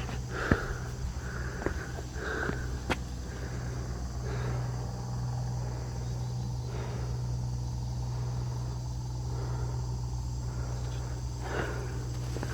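Footsteps on dry rock, with a few sharp clicks and scuffs in the first three seconds and again near the end, over a steady hum of insects and a constant low hum.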